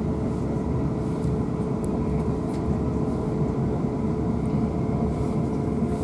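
Interior running noise of a South Western Railway Class 450 Desiro electric multiple unit travelling at speed. Wheels on the rails give a steady, dense rumble, and a constant whine rides over it.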